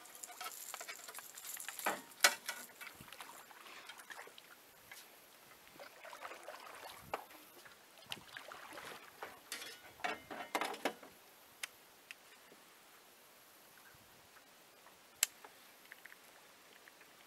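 Scattered knocks, clicks and rustling from gear being handled in a small boat, busiest in the first eleven seconds. After that it is mostly quiet, with one sharp click a few seconds before the end.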